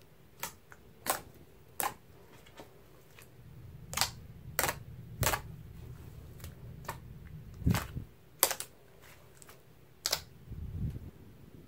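Thick slime smoothie being pressed, poked and folded by hand, giving irregular sharp sticky pops and clicks, about a dozen, over a low rumble of handling that swells near the end.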